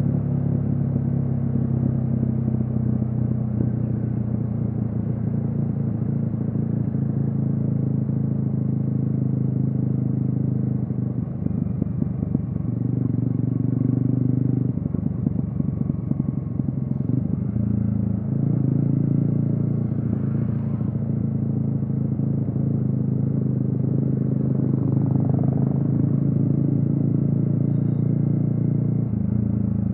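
Yamaha XSR155's single-cylinder engine running through a DIY exhaust while cruising. Its note holds steady, then steps down and up several times as the revs change.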